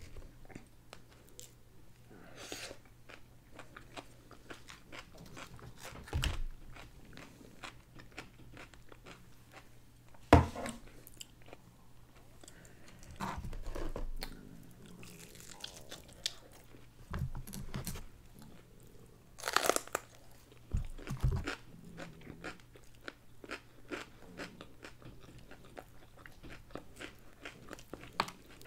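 Close-miked eating: a person chewing and crunching fried chicken, a run of many small crunches with a few louder bites, the loudest about ten seconds in.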